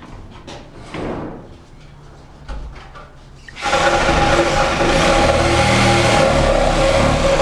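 A loud motor-driven machine starts suddenly about halfway through and runs steadily, with a strong hum over a hissing noise; before it, only faint knocks.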